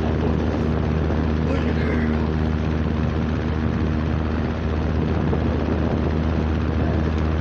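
Vacuum cleaner motor running steadily: a constant hiss over a low hum.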